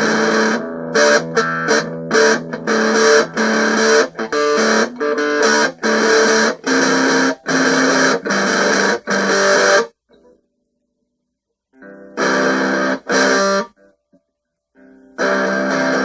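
Guitar strummed in chords, each chord cut off sharply after a short stroke or two. The playing halts for about two seconds a little past the middle, resumes with two short chords, pauses again, then carries on strumming near the end.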